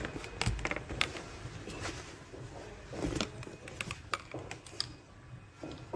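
Scattered small clicks, knocks and rustling from a handheld phone being moved and handled, with a faint murmur of voices in the background about three seconds in.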